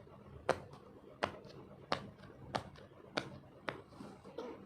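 Sharp, fairly even clicks from an Among Us puppet toy being worked by hand, about six in a row, roughly one every two-thirds of a second.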